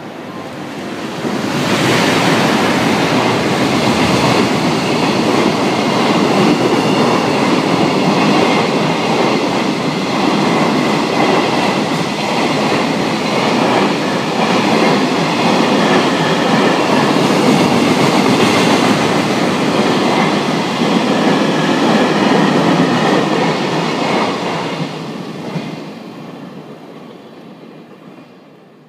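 Freight train hauled by an EF510 electric locomotive passing at speed, its wagon wheels clattering over the rails. It swells up about two seconds in, stays loud for some twenty seconds while the long train of wagons goes by, then fades away.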